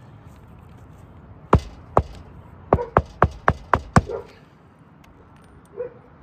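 Hammer driving roofing nails to fasten an architectural asphalt shingle: two single blows, then a quick run of six at about four a second.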